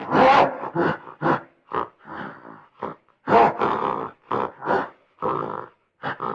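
An animal giving a rapid series of short, rough grunts, about two a second.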